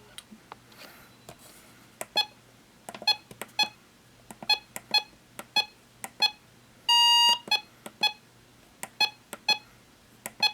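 Short electronic beeps at an uneven pace, starting about two seconds in, with one longer beep about seven seconds in: a NOAA weather radio receiver beeping as its buttons are pressed.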